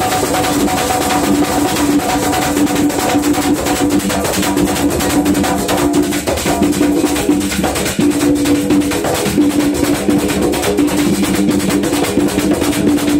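Live folk percussion: a hand drum slapped with the palms in a quick, steady rhythm, with a metal güiro scraper and maracas playing along. A held note sounds above them and breaks off briefly a few times.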